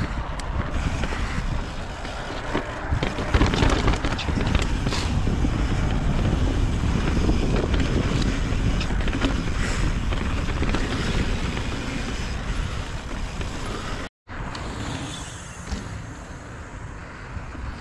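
Mountain bike rolling over a rough dirt trail: tyre noise with knocks and rattles from the bike over rocks, and wind buffeting the microphone. The sound drops out for a moment about fourteen seconds in and comes back a little quieter.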